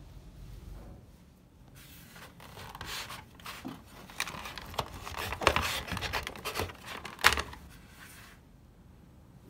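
Hands and a power cord rubbing and scraping against a portable CD player's plastic casing, with a run of sharp clicks, the two loudest about halfway through and about two seconds later, as the cord is handled and pulled free.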